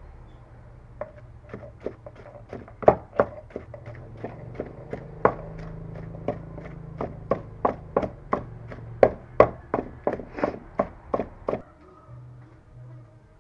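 Wooden pestle pounding food in a large mortar: a steady run of dull knocks, about three a second. The pounding starts about a second in and stops near the end.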